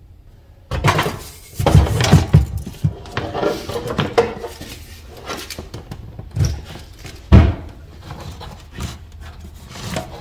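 Handling noise on a plywood board: irregular wooden knocks and rubbing, with one heavier thump past the middle.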